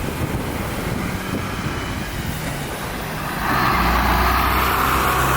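Large four-wheel-drive bus engine running with a steady hum, getting louder and heavier about three seconds in.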